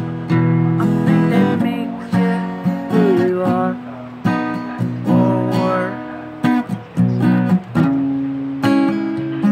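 Acoustic guitar playing a folk song, chords strummed in a steady rhythm, each strum ringing until the next.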